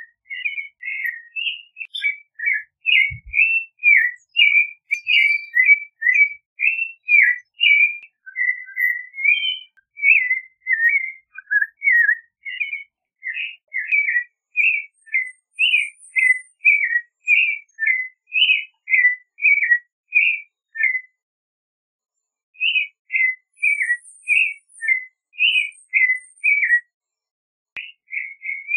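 Clay-colored thrush singing: a long, unbroken run of short whistled phrases, each one different, following closely on one another, with brief pauses about two-thirds of the way through and again near the end.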